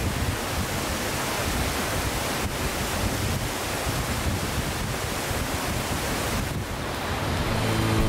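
Waterfall running: a steady, even rush of falling water. Background music comes in just before the end.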